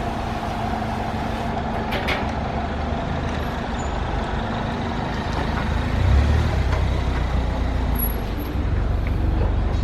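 BE 2700 psi gas pressure washer's engine running steadily, with a sharp click about two seconds in. From about six seconds in the running gets louder with a deeper rumble.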